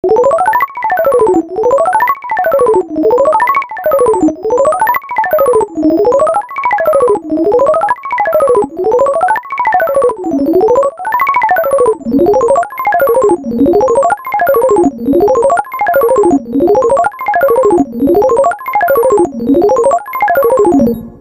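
An HTC 10 phone's built-in tone: a synthesized keyboard melody of quick notes running up and down in a repeating zigzag, about one rise and fall every second and a half. It fades out at the end.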